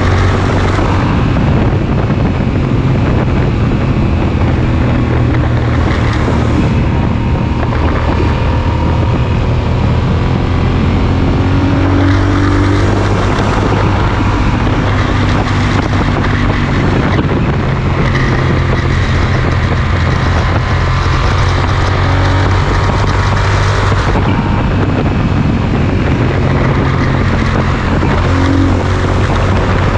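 Yamaha Super Ténéré's parallel-twin engine through a Mivv Speed Edge slip-on exhaust, held at a steady highway cruise, with wind rushing past the microphone.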